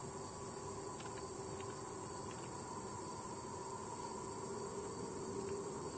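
Steady, high-pitched insect chorus, unbroken, with a few faint ticks.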